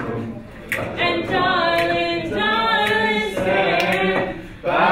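Students singing a cappella together in long, held notes. There is a short break about four seconds in, and the singing comes back louder near the end.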